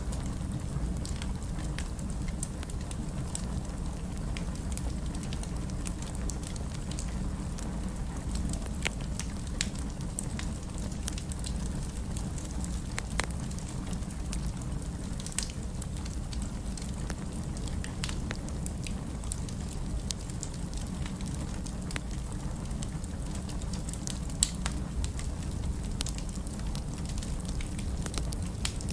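Fire burning in a fireplace: scattered sharp crackles and pops over a steady low rumble, with one louder pop near the end.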